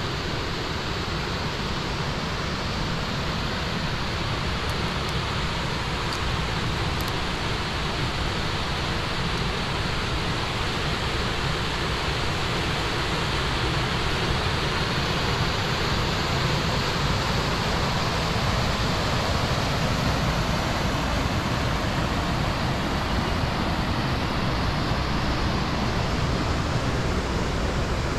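Small waterfall splashing over rocks into a pool: a steady rush of falling water that grows slightly louder in the second half.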